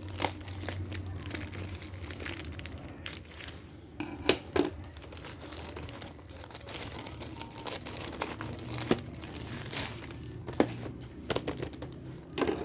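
Parcel packaging crinkling and crackling as it is unwrapped by hand, with occasional sharper snaps.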